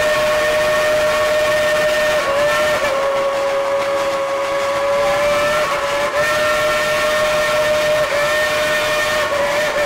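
Steam whistle of Dollywood Express Engine 70, a coal-fired steam locomotive, blown in one long, loud blast that sounds several notes at once, its pitch dipping briefly a few times.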